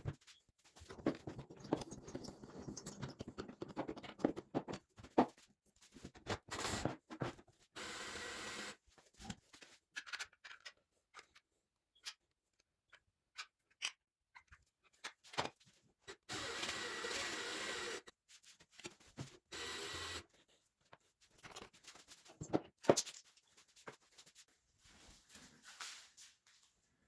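Workshop hand work on small parts: scattered clicks, taps and scrapes, with three short stretches of steady hissing noise, the longest about two seconds.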